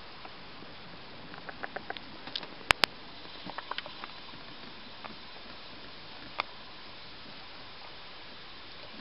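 A peanut shell being cracked between fingers: a quick run of small clicks, then two sharp loud cracks close together, a few more small clicks, and one lone snap later on.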